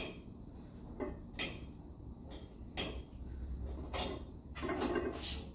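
Plate-loaded 45° leg press in use: the sled travelling on its rails and the loaded weight plates giving a series of light metallic clicks and clinks as the legs push and lower the load.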